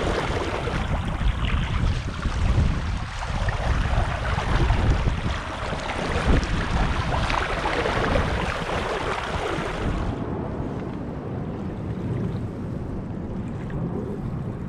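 Wind buffeting the microphone over water rushing and splashing along a sailing canoe's hull, swelling and easing with the gusts. About ten seconds in it drops abruptly to a duller, quieter rush of wind and water.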